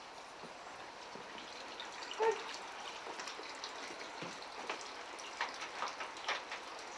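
Small clicks, knocks and rustling of people moving into a small room, with one short squeak about two seconds in.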